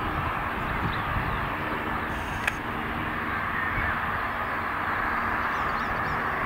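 Steady jet-engine noise from airliners moving on the runway and taxiway, with a faint click about two and a half seconds in and a few faint bird calls.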